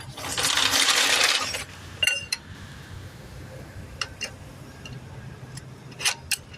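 Metal tools clinking and clattering, a loud rattle of about a second and a half near the start and then a few sharp clicks, as a torque wrench and socket are fetched for tightening the lug nuts. A steady low hum runs underneath.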